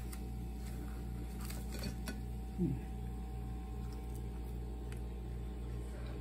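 A few faint clicks and crinkles from handling a plastic zip bag and pieces of dried beef, over a steady low appliance hum; about two and a half seconds in, a short, falling 'mm' from a man chewing.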